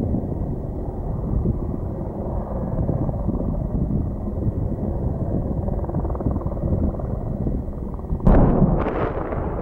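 Steady low rumble of a helicopter running. About eight seconds in, the bang of an avalanche-control explosive charge detonating on the snow slope, with a second crack about half a second later, fading as it rolls off the mountain.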